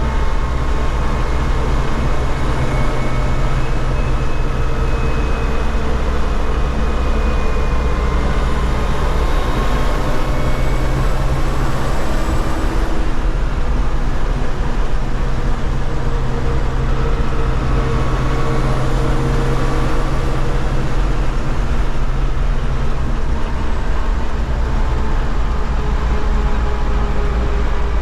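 MTZ-80 tractor's D-243 four-cylinder diesel engine running steadily while the tractor is driven, its pitch drifting gently up and down.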